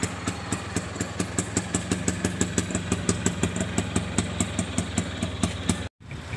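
Auto-rickshaw's single-cylinder engine idling, a steady rapid chug of about seven beats a second. It breaks off abruptly near the end.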